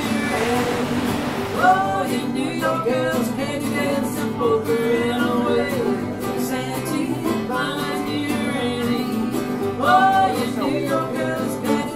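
Background music: a country-style song, with a voice singing over plucked strings.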